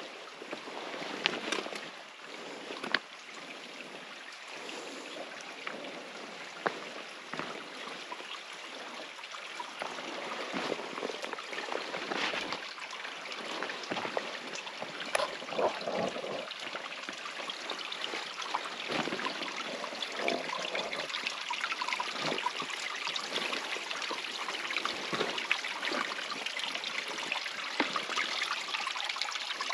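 Small mountain stream or spring trickling and splashing steadily, with scattered sharp clicks and knocks over it.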